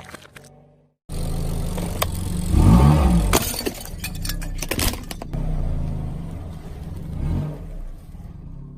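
Car engine running with a brief rev about three seconds in, and a few sharp cracks and crunches as things break under the car's tyre.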